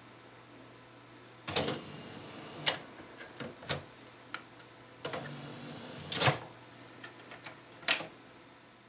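Philips CD371 CD player's disc tray motoring open and, a few seconds later, closed again, each run of the tray mechanism ending in a click. Small clicks of buttons and disc handling come in between, with one more click near the end.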